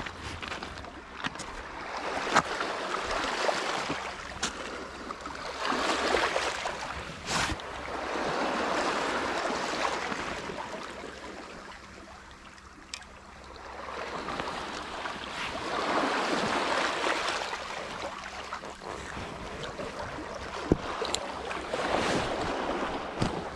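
Small waves washing over a pebble and stone shore, swelling and fading every few seconds, with a few sharp clicks between them.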